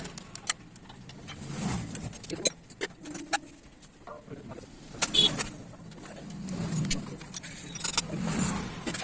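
Scattered metallic clinks and taps of hand tools and engine parts being handled, the sharpest about five seconds in, over passing motor-vehicle rumble that swells and fades several times.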